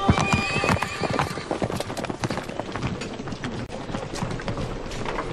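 Hooves clip-clopping on hard ground, with a horse neighing once near the start, amid the bustle of a desert camp.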